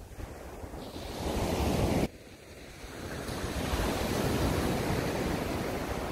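Waves breaking on a shingle beach, with wind buffeting the microphone. The surf swells, cuts off abruptly about two seconds in, then builds again into a longer wash that slowly fades.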